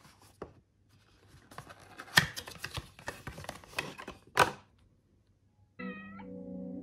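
A cardboard cosmetics box being handled: rustling, clicks and taps, with two sharp knocks a little over two seconds in and about four and a half seconds in. Near the end, soft music with sustained notes starts abruptly.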